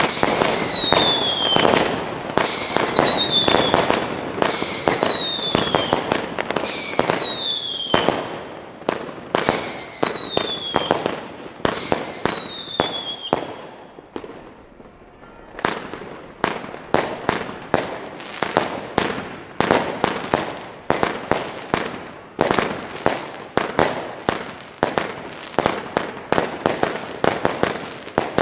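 100-shot 20 mm firework compound cake (Diamond Feuerwerk Space Walk) firing. In the first half, shots and crackling come with a falling whistle about every two seconds. After a brief lull near the middle, a quick run of bangs and crackles follows, a few each second.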